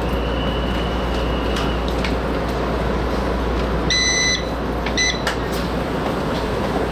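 Taiwan Railways E200-series electric locomotive at a station platform, its machinery giving a steady rumble and hum, with a thin high whine for the first two seconds. Two short high beeps sound about four seconds in and again about a second later.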